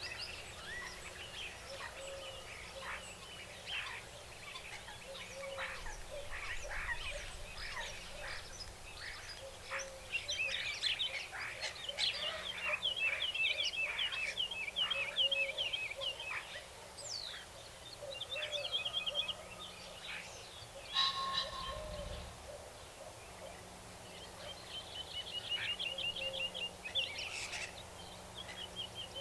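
Outdoor birdsong chorus: several birds chirping and singing fast trills of rapidly repeated notes, busier from about a third of the way in, over a faint steady background. A brief low thud about three-quarters of the way through.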